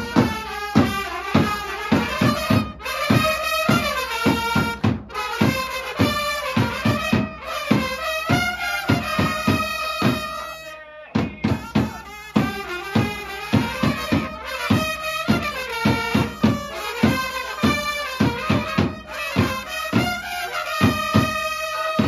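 Japanese baseball cheering-squad trumpets playing a cheer song in unison over fast, steady bass-drum beats, the melody breaking off briefly a few times.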